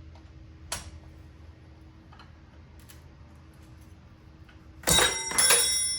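Metal parts clinking together: a light tap about a second in, then two loud ringing clinks half a second apart near the end.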